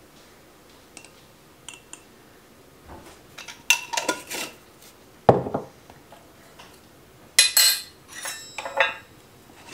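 Metal measuring spoon clinking against a glass spice jar and a stainless steel mixing bowl as ground spices are measured out, in separate short clinks. There is a dull knock about halfway through and a short scraping rattle of glass near the end.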